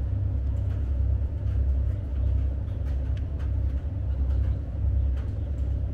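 Wind buffeting the microphone: a steady low rumble that swells and eases, with a few faint ticks above it.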